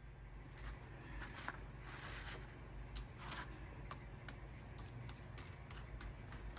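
Faint crackling and scattered small clicks of crispy breaded fried chicken strips being cut with scissors and handled on a paper towel.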